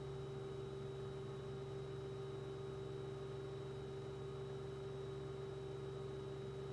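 Steady, unchanging hum made of a few constant tones, one low and one in the middle, with a faint high whine above them.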